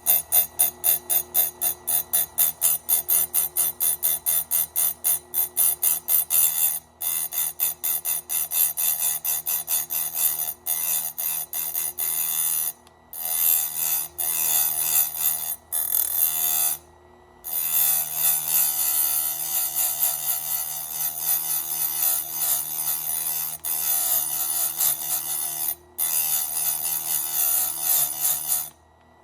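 Background music with a fast, regular beat, broken by several brief drops to silence.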